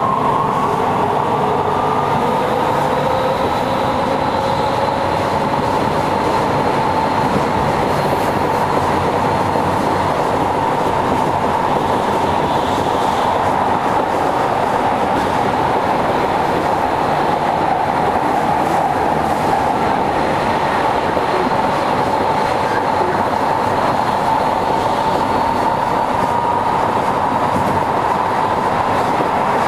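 Kyoto Municipal Subway Tozai Line 50 series train running underground, heard from inside the car: steady running noise of wheels on rail, with a traction motor whine that rises in pitch over the first few seconds as the train gathers speed, then holds steady.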